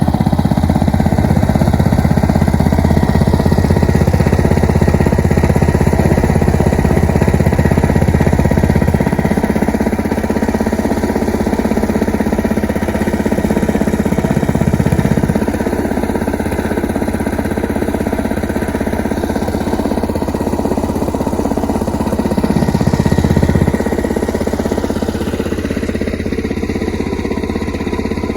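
An engine running continuously, its low note changing a few times.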